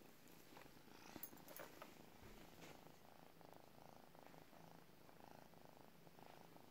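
A domestic cat purring faintly and steadily, with a few faint clicks about one to two seconds in.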